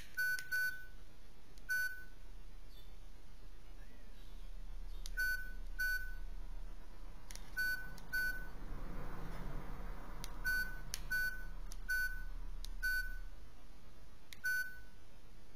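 Keypad beeps from a Telefunken TM230 flip phone as its buttons are pressed one at a time: about a dozen short, single high beeps at irregular intervals, with a few faint button clicks.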